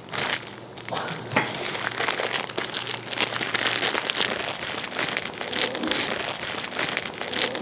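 Plastic wrapper of a Richeese cheese instant-noodle packet and its foil seasoning sachets crinkling and rustling as they are handled and pulled about. It is a dense run of small crackles with no pause.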